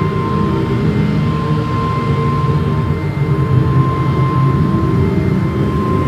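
A continuous low rumbling drone with a steady thin high tone held over it, unchanging in level.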